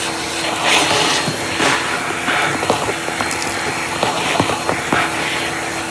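Vacuum cleaner running, its hose drawing air with a steady rushing hiss and a faint steady hum. Irregular small clicks and ticks are scattered through it.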